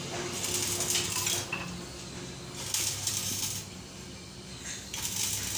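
Electric arc welding: a crackling hiss that comes in about three bursts of a second or so each, over a steady low electrical hum.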